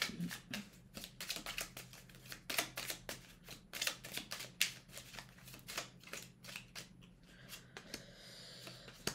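A small deck of Lenormand cards being shuffled by hand: an irregular run of quick card clicks and snaps, turning into a softer continuous rustle of sliding cards near the end.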